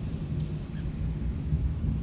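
Thunder rumbling low and continuously while rain falls steadily.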